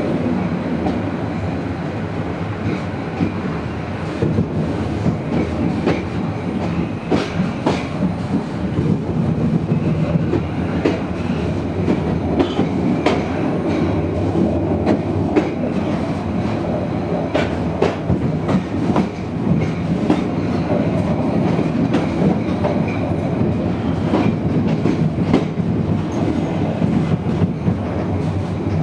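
Passenger train carriages running along the line: a steady rumble of wheels on rails, with irregular clicks and knocks as the wheels cross rail joints and points.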